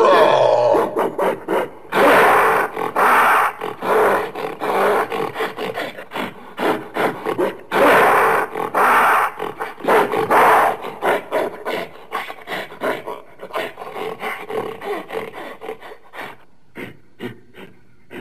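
Gorilla vocalising: two long, loud, noisy calls about two and eight seconds in, set among series of short rapid calls that grow fainter toward the end.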